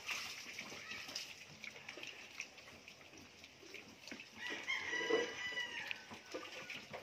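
A rooster crowing once, a long held call about four and a half seconds in, over faint scuffling and rustling.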